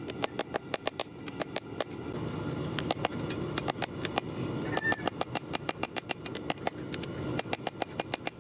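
Rapid runs of hammer blows on 5160 high-carbon steel at the anvil, several strikes a second, thinning out in the middle before picking up again, over a steady low rush.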